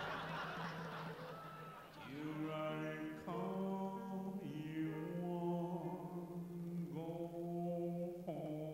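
A man singing slow, chant-like long held notes into a stage microphone over a steady low tone. The singing starts about two seconds in after a quieter opening, and each new note enters sharply and is held.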